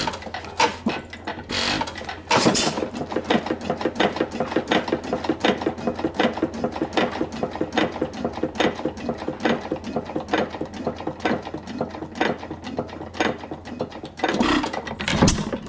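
Detroit Engine Works-badged 4.5 hp Nelson Brothers hit-and-miss engine running just after starting, with a fast, even clatter from its valve gear and latch-out mechanism. Louder knocks come about two seconds in and again near the end.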